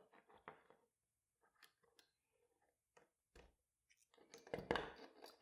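Faint rustling and small clicks of hand-stitching nylon webbing: thread drawn through the webbing, with metal pliers and a binder clip being handled. A short, slightly louder scrape comes about four and a half seconds in.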